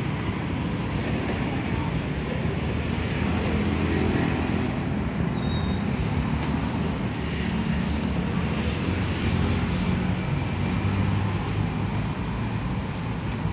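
Steady street ambience, mostly a low rumble of passing traffic.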